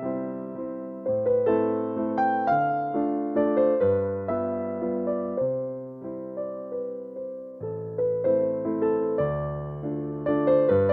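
Background music: a piano or electric piano playing a slow, gentle melody over sustained low chords, each note struck and fading.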